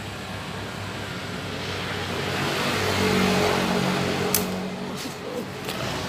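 A motor vehicle passing by on a city street, its engine and tyre noise growing louder to a peak about three seconds in, then fading away. A single sharp click comes just after four seconds.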